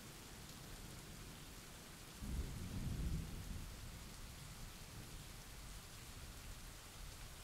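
Steady rain falling, with a low roll of thunder that starts suddenly about two seconds in, peaks a second later and fades away.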